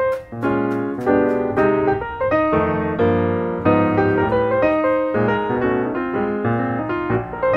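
Gentle solo piano background music. In the first second or so a few sharp knife chops on a wooden cutting board sound under it.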